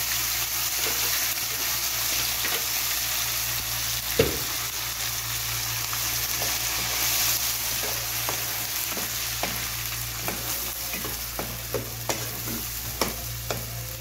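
Food sizzling as it fries in an oiled pan, with a spatula stirring and scraping it. A single loud knock comes about four seconds in, and in the second half the spatula clicks against the pan more and more often.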